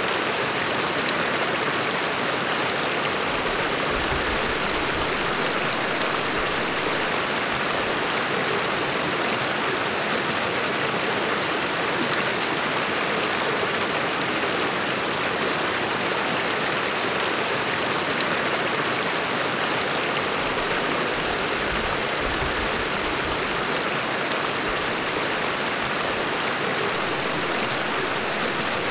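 Stream flowing steadily, an even water noise. A bird gives a few short, high chirps about five seconds in and again near the end.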